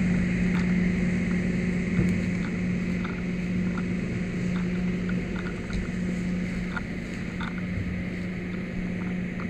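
Idling fire truck engine: a steady drone with a constant hum, slowly fading. A few faint clicks.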